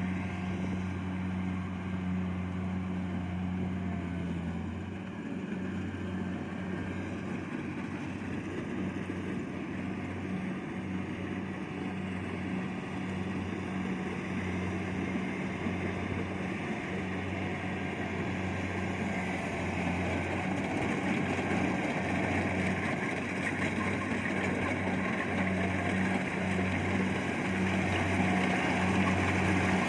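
Kubota DC70 Plus rice combine harvester working in the field: its diesel engine runs steadily under load over a broad rushing noise from the cutting and threshing, growing louder toward the end.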